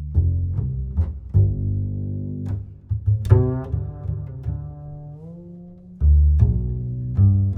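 Background music built on deep, sustained bass notes with sharp plucked accents, and a melody line that glides down in pitch midway through.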